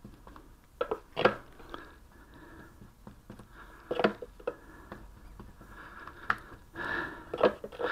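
Scattered light clicks and taps with soft sticky scraping: a wooden stick dabbing oil into a slab of old window glazing putty, and a plastic oil bottle handled. The oil is being added to loosen putty that is still too short.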